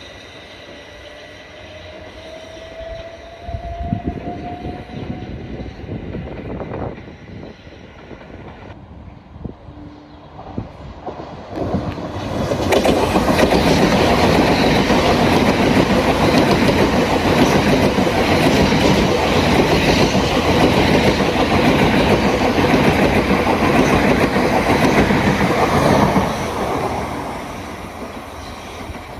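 Southeastern electric multiple-unit train passing through the station: after a faint rising whine in the first few seconds, the rush of wheels on rail comes in loud about twelve seconds in, holds for some fourteen seconds, and fades away near the end.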